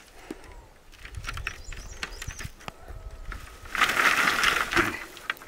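Freshly cut green bamboo canes knocking against each other and their leaves rustling as the canes are gathered into a bundle, with scattered light knocks and a louder burst of rustling about four seconds in.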